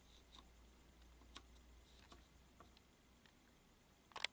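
Near silence with faint, scattered ticks of a marker pen and fingers against a circuit board, and a sharper double click about four seconds in.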